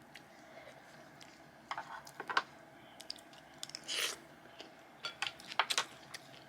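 Someone eating and handling food: scattered crunches, clicks and taps, with a longer rustle about four seconds in.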